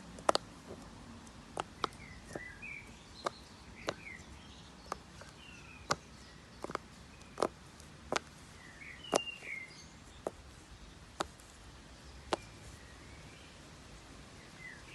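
A fidget toy being clicked, giving sharp single clicks about once a second at uneven intervals. Short bird chirps sound in the background.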